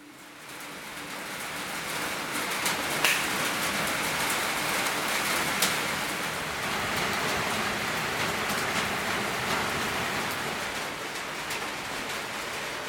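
Steady rain falling, with scattered sharp taps of drops hitting a surface. It fades in over the first couple of seconds.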